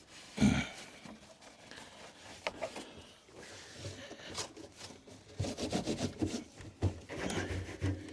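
Knocks and rubbing from hands working on a tumble dryer while clearing out fluff, with one heavy thump about half a second in and a cluster of low knocks over the last few seconds.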